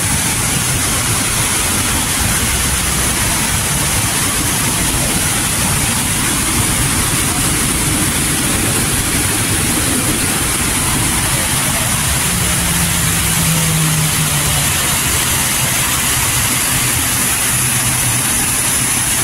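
The Falls of Falloch waterfall rushing: a loud, steady, even noise of falling water that does not change.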